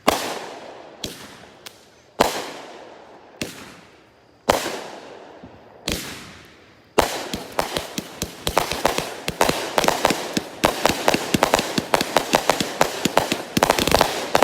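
Red Apple 'Mad Bomber' consumer firework cake firing: single loud bangs about a second apart, each trailing off in a fading echo, then from about halfway a rapid, dense barrage of bangs for its finish.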